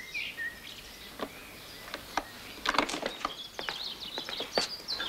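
Scattered sharp metallic clicks and rattles of a door lock being picked, thickening towards the end as the latch gives and the door opens, over faint outdoor birdsong.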